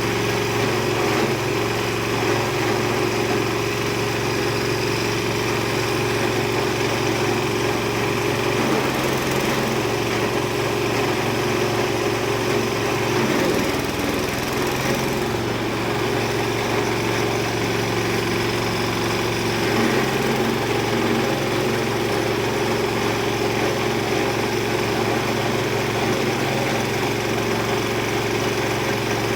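Type 30/R2 multi-purpose chopper-grinder machine running steadily, driven by a small engine, with a brief change in its low note about a third and halfway through.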